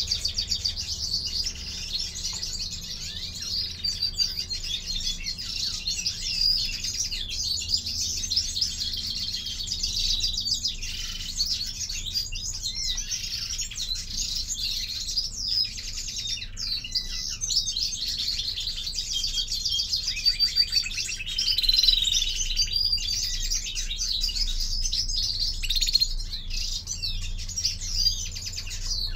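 European greenfinches in a cage twittering and chirping without a break, a fast run of high notes.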